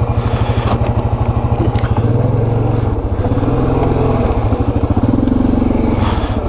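Yamaha Grizzly 700 ATV's single-cylinder engine pulling through deep mud, running in steady even pulses. The revs rise about two seconds in and again from about three seconds in.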